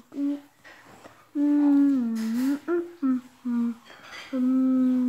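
A person humming a tune without words: a few short notes, then two long held notes that sag in pitch and rise again.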